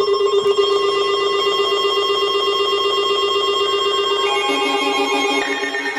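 Weather alert radio receivers sounding their electronic alarm for a Severe Thunderstorm Warning: a loud, rapidly trilling alarm tone, joined about four seconds in by a second, lower pulsing alarm.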